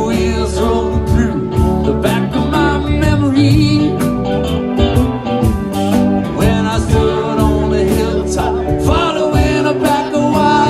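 Live band playing a country-rock song on guitars over a steady beat.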